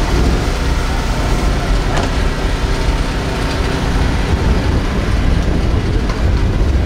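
Lifted pickup truck's engine running close by with a steady low rumble.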